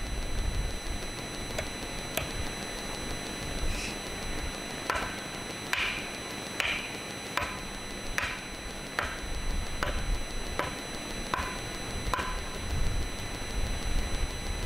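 About ten short, sharp cutting strokes of a blade worked by hand, roughly one every three-quarters of a second, each with a brief ring that drops lower in the later strokes. Wind rumbles on the microphone throughout.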